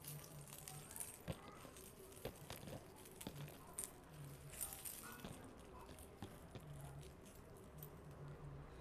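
Faint, scattered clicks and light metallic clinks of gold-plated jewellery chains being handled, over a low hum that comes and goes.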